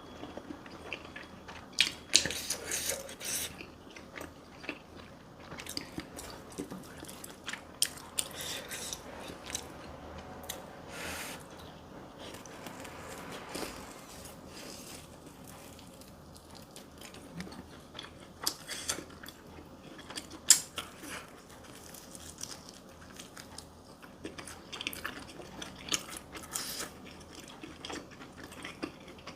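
Close-miked eating: chewing and biting into food, with crunches and many short irregular clicks throughout.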